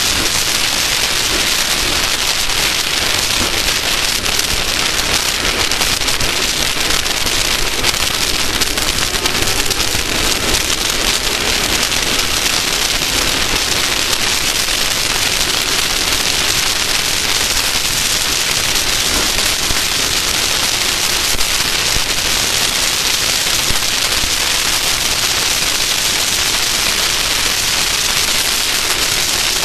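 Steady, loud rushing noise with no clear engine note, from an off-road race vehicle running at speed.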